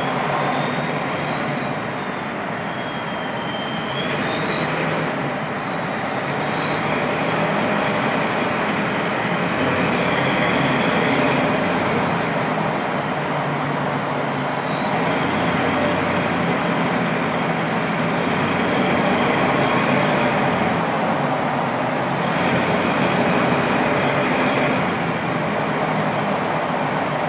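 Turbocharged Ford 7.3 IDI diesel V8 running under load, its turbo whistle climbing and falling in pitch about three times as the throttle changes, over the engine's steady rumble.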